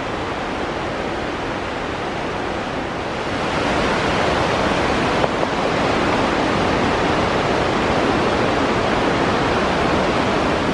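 Rushing water of the Gardner River's rapids in the canyon below, a steady hiss that gets louder about three and a half seconds in.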